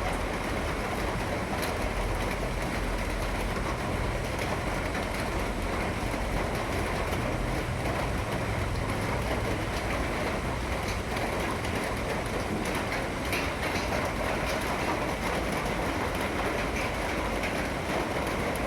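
Steady heavy rain, an even hiss with a low rumble under it and faint scattered ticks of drops.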